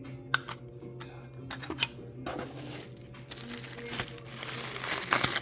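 Packaging being unwrapped, crinkling and rustling, from about two seconds in and loudest near the end. Two sharp clicks come before it, in the first two seconds.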